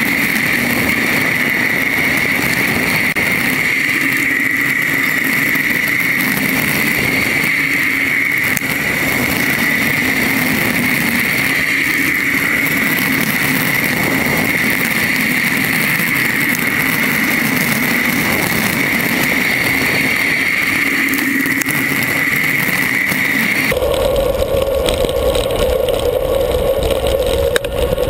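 Wind rushing over an action camera's microphone on a fast bicycle descent, a loud steady rush with a constant whistling tone. About 24 seconds in it changes abruptly to a lower-pitched steady rush with more rumble.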